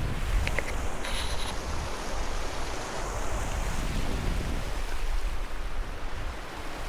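Wind buffeting the microphone: a steady, gusting rumble, with a few faint clicks about a second in.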